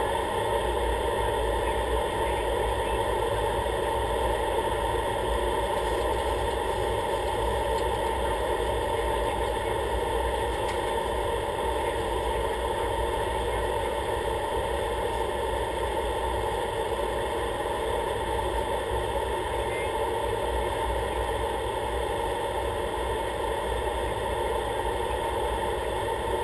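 Light aircraft's engine running steadily on approach, a constant even drone heard inside the cockpit.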